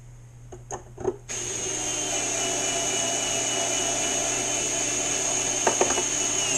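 Cordless screwdriver driving a stainless hex bolt into the boat's strut mount. After a couple of light clicks, the motor starts about a second in and runs steadily with a high whine.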